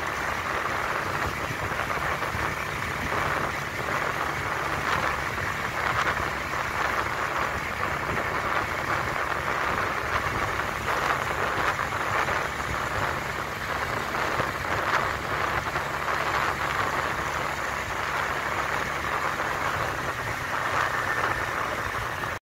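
Steady hiss of tyres on asphalt and wind while riding along the road, with a faint low hum underneath; it cuts off suddenly at the very end.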